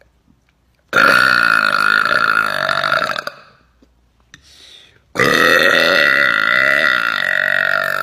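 A woman burping loudly twice: a long burp of about two and a half seconds, then after a short pause a second, longer burp starting about five seconds in.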